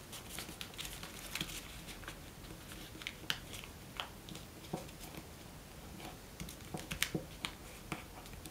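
A square of origami paper rustling faintly as fingers fold it and press the creases flat, with scattered light clicks and taps at irregular moments.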